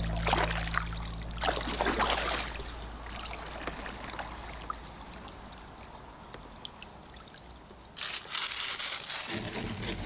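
Kayak paddle strokes dipping and splashing in lake water: a few splashes in the first two seconds, a quieter stretch, then more splashing about eight seconds in. Low background music fades out over the first few seconds.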